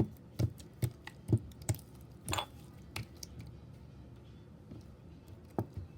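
A run of short, wet squishing pops, about seven in the first three seconds, then softer with one more near the end: the squish of slime being worked hard.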